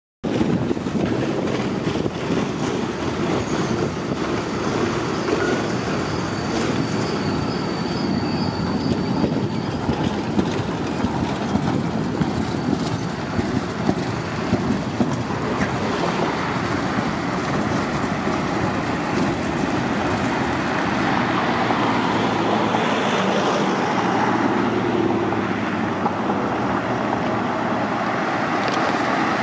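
Low-floor tram running past over street track and points, the wheels clicking over rail joints, with a faint high squeal from the wheels for a few seconds early in the passage. Road traffic noise continues underneath.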